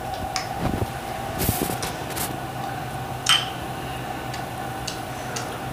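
A spoon clinking and scraping a few times in a bowl of cereal and milk, over a steady background hum.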